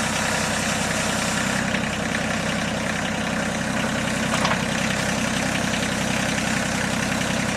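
Water-well drilling rig's engine running steadily.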